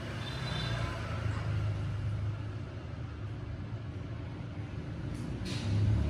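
Steady low background rumble, with a short rustle about five seconds in.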